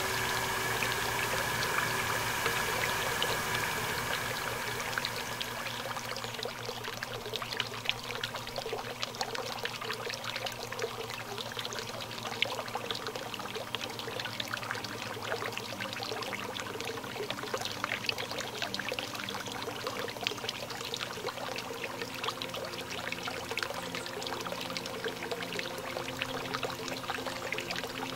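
Garden fountain water splashing and trickling steadily, a dense patter of falling drops.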